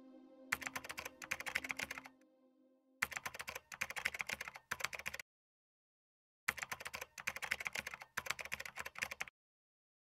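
Typing sound effect: rapid key clicks in three runs of about two to three seconds each, with short silent pauses between them. A faint steady hum is heard in the first seconds.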